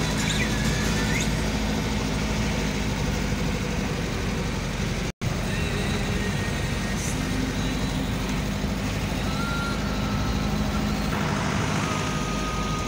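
Vehicle engine and road noise heard from inside the cabin while driving, a steady drone. The sound cuts out for an instant about five seconds in.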